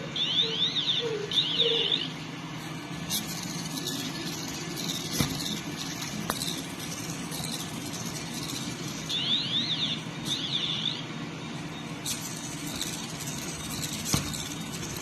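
Electronic beeper chirps from a 3D-printed Otto robot: two pairs of fast up-and-down sweeping tones, one pair at the start and another about nine seconds in. Between them come scattered sharp clicks over a low steady hum, typical of the robot's hobby servos and plastic parts moving as it is tested.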